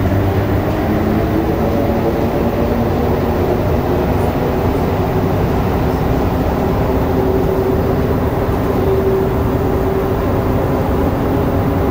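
Rubber-tyred Montreal Metro Azur train running through a tunnel, heard from inside the car: a steady, loud rumble with a faint motor hum that grows a little stronger midway.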